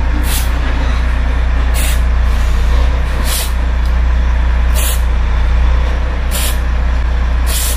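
Aerosol contact cleaner sprayed through a Scania DC13 diesel injector nozzle in short hissing bursts, about six of them roughly every second and a half, to test the nozzle's spray holes for blockage. A steady low drone runs underneath and is the loudest sound.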